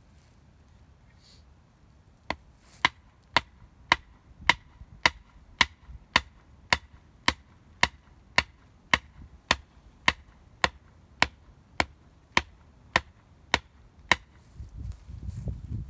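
Hatchet chopping into a wooden pole in a steady rhythm of sharp strikes, about two a second, some twenty in all, starting a couple of seconds in and stopping near the end.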